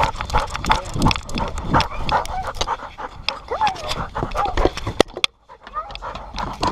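Dog panting rapidly and hard, close up at a collar-mounted microphone, with a brief pause about five seconds in.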